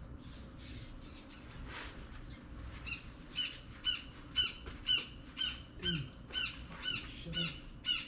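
A bird calling over and over in short sharp chirps, about two a second, loud from about three seconds in, after a few softer calls.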